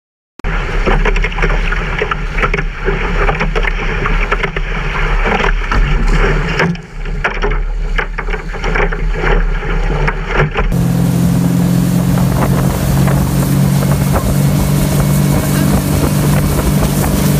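Wind buffets the microphone and water rushes past a small sailing catamaran heeled over at speed, with a heavy low rumble and irregular gusts. About ten seconds in, the sound changes to a motorboat engine running steadily at speed, with water spraying from the wake.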